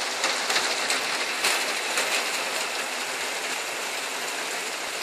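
Steady rain falling on a garden: an even hiss, with a few louder drop taps in the first couple of seconds.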